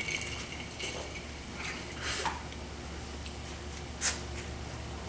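Scattered light clicks and rustles over a steady low hum, with one sharper click about four seconds in.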